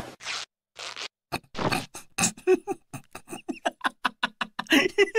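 A man laughing: two breathy snorts of suppressed laughter, then short bursts of laughter that come faster and louder, building into steady, rapid laughing near the end.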